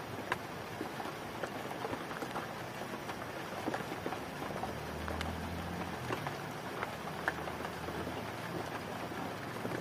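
Light rain falling: a steady hiss with scattered ticks of drops. A low hum comes in about five seconds in and fades out a few seconds later.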